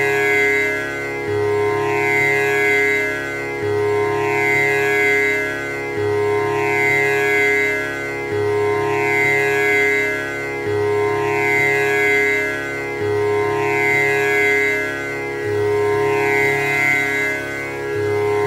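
Tanpura drone: its four strings are plucked one after another in a slow, even cycle that repeats about every two and a half seconds, with a buzzing, shimmering overtone sound sustained between plucks.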